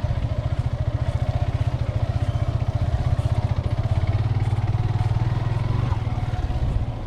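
Motorcycle engine running steadily under way, a continuous low pulsing rumble of rapid firing strokes.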